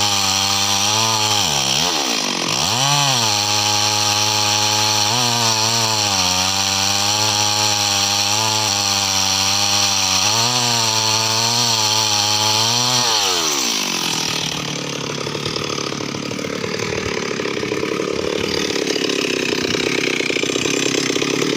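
Stihl MS 382 two-stroke chainsaw cutting teak at full throttle, bogging briefly about two seconds in and wavering in pitch as it works through the cut. About two thirds of the way through the revs fall away steeply and the saw drops to a rough idle.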